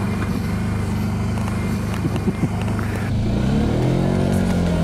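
TGB Blade 1000 ATV's V-twin engine running steadily at low speed, then rising in pitch as it accelerates, about three seconds in. A couple of brief clicks sound just past two seconds.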